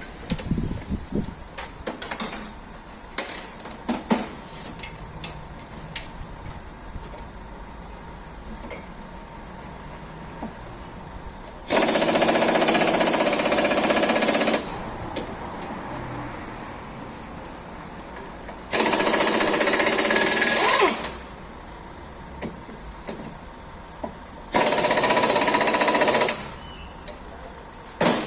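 Pneumatic impact wrench hammering in three bursts of two to three seconds each, with the clink of tools and metal parts in between, as parts are undone at the front wheel of a van being stripped down for a worn wheel bearing.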